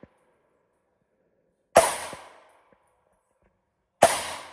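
Two single rifle shots from an AR-style 5.56 rifle, the Springfield Saint Victor, a little over two seconds apart, each echoing and dying away over most of a second in the indoor range. A few faint ticks follow the shots.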